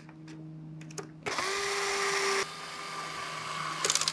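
Small electric screwdriver driving 4-40 screws into a 3D-printed blaster side panel: a few light clicks, then the motor whines steadily for about two and a half seconds, stepping quieter about halfway through, and stops with a couple of clicks near the end.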